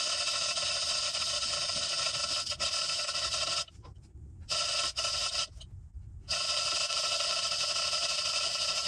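Two-stroke chainsaw running at a steady high pitch under full throttle, cutting wood. The sound cuts out abruptly twice, for under a second each time, near the middle.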